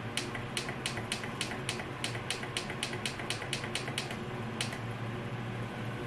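Rapid, even clicking of the plug-in thermostat's buttons being pressed repeatedly, about four presses a second, to step the set temperature down below the room temperature. The clicking stops shortly before the end. Under it, the electric greenhouse heater's fan runs with a steady low hum.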